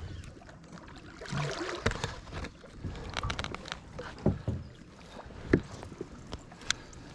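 Water splashing and sloshing around a small boat's hull, with scattered knocks and clicks of gear against the boat.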